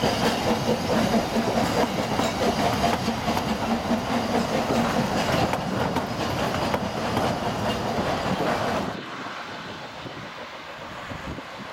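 Narrow-gauge Ffestiniog Railway passenger carriages rolling slowly past, their wheels clicking over the rail joints. Just before nine seconds in the sound drops abruptly to a much fainter, distant one.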